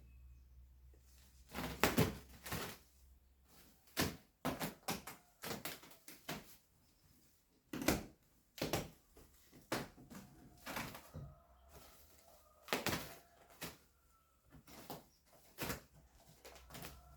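Irregular knocks, thuds and clatter of things being handled and set down, with sharp loud knocks scattered throughout and a faint thin tone in the background during the second half.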